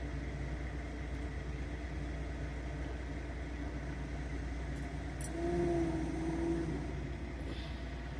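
Steady low rumble of a semi-truck's engine and road noise while driving. A brief wavering tone rises over it for about a second and a half, a little past halfway.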